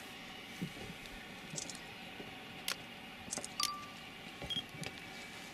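A few scattered light clicks and taps over a faint steady background, with one brief short beep about three and a half seconds in.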